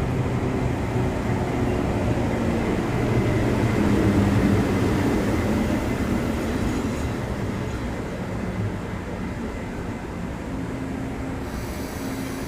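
Passenger train hauled by an E400-class electric locomotive pulling into a station. The running noise is loudest about four seconds in, then eases off as the train slows, with a steady hum near the end.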